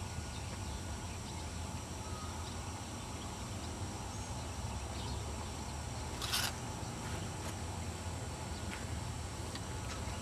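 Outdoor ambience: a steady low rumble and even hiss, with one short rustle or scrape about six seconds in.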